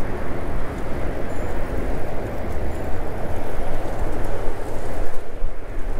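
Wind rushing over a GoPro's microphone while riding a bicycle: a steady, dense rumble with no distinct tones.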